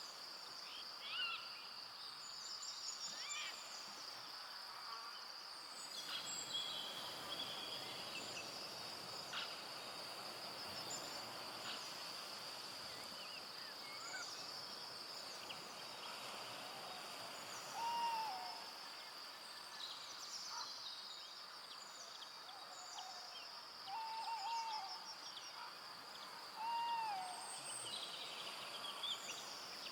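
Forest ambience at dusk: a steady high-pitched insect drone with many scattered bird chirps and whistles, and a few louder, short whistled calls in the second half.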